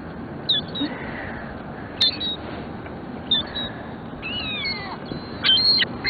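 Gulls calling: a few short, high mewing calls spaced a second or so apart, one drawn-out falling call, then a quicker run of calls near the end, over a steady background rush.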